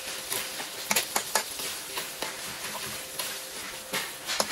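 Ground meat and tomato paste sizzling in a metal wok while a slotted metal spatula stirs it, with sharp clicks and scrapes of metal on the pan about a second in and again near the end.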